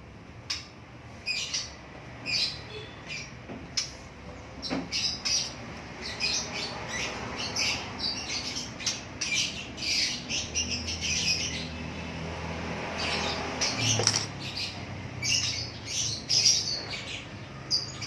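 Small birds chirping and squawking over and over in short, high, irregular calls.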